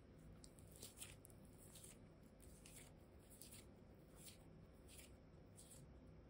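Faint crackly squishing of soft modeling clay being squeezed and mashed together in the hands: a scatter of light clicks, irregular, about one a second, over a low steady hum.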